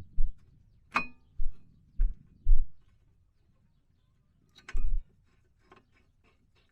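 Metal brake parts clinking and knocking as they are handled and fitted: a sharp ringing clink about a second in and another near five seconds, among several dull low thumps.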